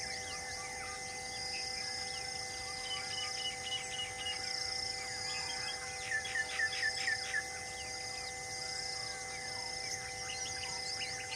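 Forest ambience: birds chirping and calling, the loudest a quick run of about six short notes some six seconds in, over a pulsing chorus of insects and steady droning tones.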